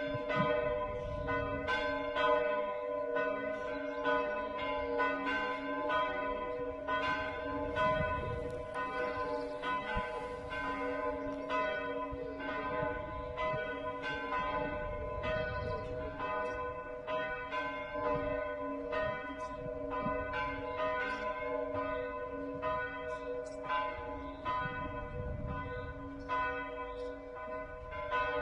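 Full peal of church bells, all the tower's bells swinging and ringing together. Their strikes overlap in an uneven rhythm of about two a second over a steady hum of several bell tones.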